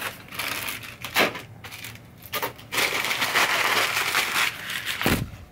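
Brown packing paper being pulled from a cardboard box and crumpled by hand: short rustles, then a long stretch of crinkling, with a dull thump near the end.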